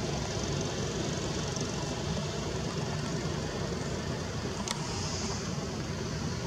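Steady low outdoor rumble, with one sharp click about three-quarters of the way through.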